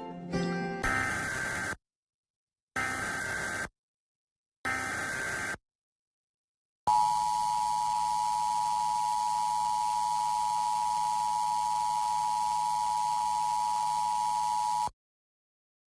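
Emergency Alert System tones: three short bursts of SAME header data, a harsh digital warble each lasting about a second with a second's gap between them. Then the steady two-tone EAS attention signal, held for about eight seconds before it cuts off suddenly. This is the opening of an EAS alert, here a required monthly test.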